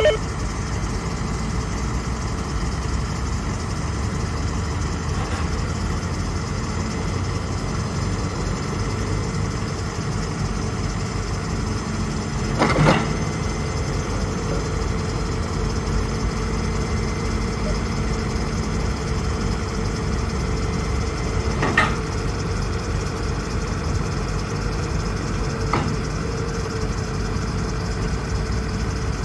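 2007 Ford F450's 6.0-litre Power Stroke V8 turbo diesel idling steadily, with a few short clunks: one about 13 seconds in, another near 22 seconds and a lighter one near 26 seconds.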